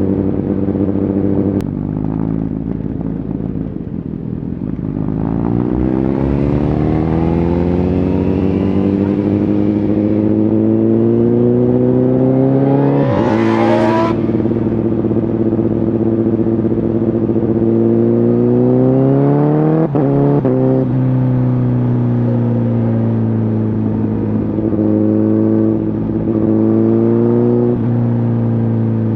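Honda CBR1000RR Fireblade's inline-four through a Shark Factory aftermarket exhaust, pulling up through the revs in one gear. It upshifts about halfway through, pulls again, upshifts once more a few seconds later, then holds nearly steady revs while cruising.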